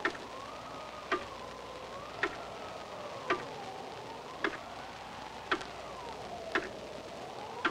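Clock-like ticking, one tick about every second, over a warbling tone that slowly rises and falls every two seconds or so: a countdown sound effect on the film's optical soundtrack.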